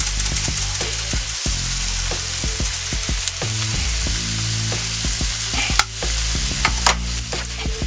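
Cubed chicken breast with onion and celery sizzling in a frying pan, a steady frying hiss. Two sharp clicks about a second apart in the second half.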